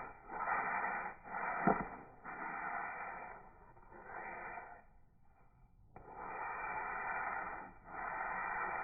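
Sandpaper rubbing back and forth over the cured first coat of urethane on a wooden box, a rasping stroke about once a second with short breaks between strokes, fading and pausing about five seconds in before resuming. A single sharp knock a little under two seconds in.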